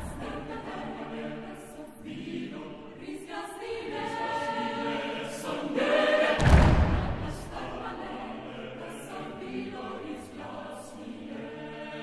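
Mixed choir in divided SATB parts singing a cappella, holding layered chords in several voices, with a loud full-voiced swell about six and a half seconds in.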